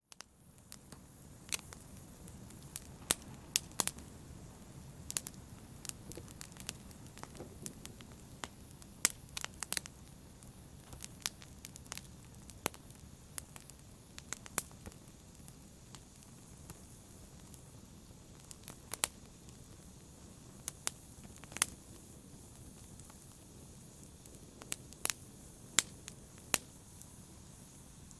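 Wood fire burning in a fireplace: a low steady rush of flames with sharp, irregular crackles and pops from the burning logs.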